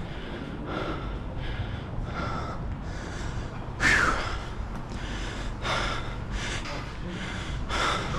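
A person panting hard from exertion, with quick, regular breaths of about one every second and a louder gasp about four seconds in.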